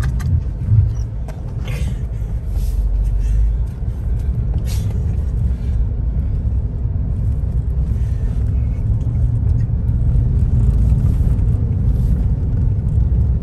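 Steady low rumble of a Ford Bronco driving on a dirt trail, heard from inside the cabin, with a few short knocks and rattles in the first five seconds.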